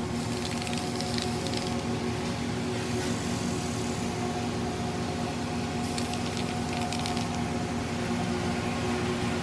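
Aerosol can of Rust-Oleum camouflage spray paint hissing in bursts, over a steady mechanical hum.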